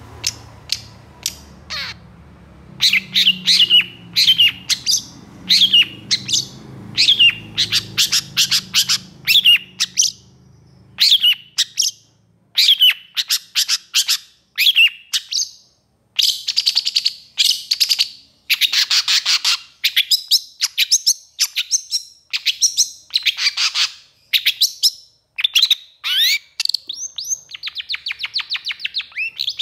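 Long-tailed shrike (pentet) singing agitatedly in a long, rapid run of sharp, strident, downward-slurred notes, turning into harsher rasping calls about halfway through. A faint low hum lies under the first third.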